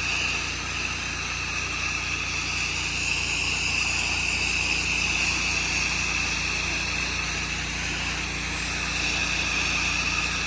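Gas pressure washer engine running steadily under load while the spray wand hisses continuously, laying on a soak coat of downstreamed chemical.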